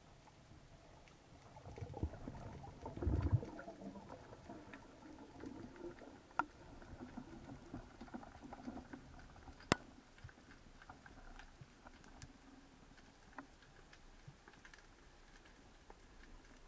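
Underwater sound heard through a speargun-mounted camera's housing: a faint wash of water with a low swell of water noise about two to three seconds in, and scattered sharp clicks, the loudest about ten seconds in.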